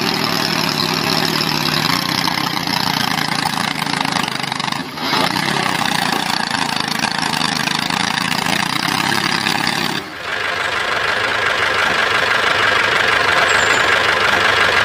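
Steady engine-like running noise, broken by two abrupt cuts about five and ten seconds in. After the second cut it carries a steady higher whine.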